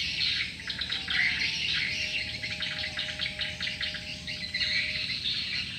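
Dense twittering of edible-nest swiftlets, many quick high chirps overlapping, as the birds gather to a swiftlet lure-call recording. A faint steady hum sits underneath from about a second in until near the end.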